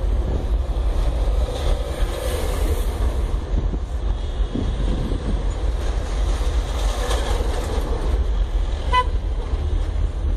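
Steady low rumble of a moving vehicle's engine and road noise, with a brief high tone about nine seconds in.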